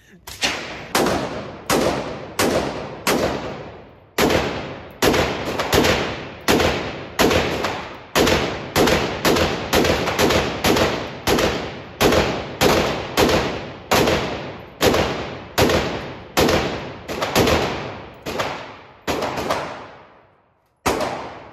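Rapid fire from a gun fitted with a binary trigger: a long string of loud shots, about two a second, each trailing off in a ringing echo. There is a brief break about four seconds in and another near the end before a final shot.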